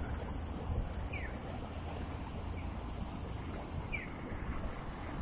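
Japanese accessible pedestrian-crossing signal chirping: a short falling bird-like chirp repeated evenly, about every second and a half, over a low steady street rumble.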